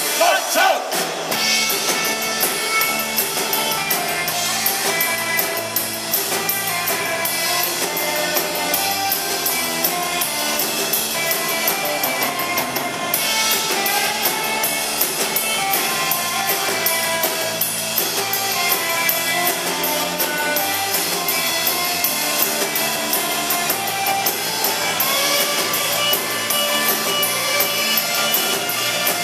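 Three-piece rock band playing live: electric guitar, electric bass and drum kit.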